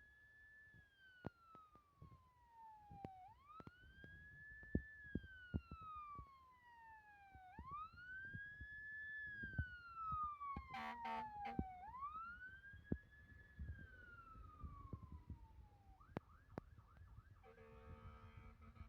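Fire engine siren, faint, on a slow wail: each cycle rises quickly and falls slowly over about four seconds, four times over, sounding as the engine responds to an alarm. A short burst of a different, steadier tone comes about halfway through, and near the end the wail gives way to a steady held tone.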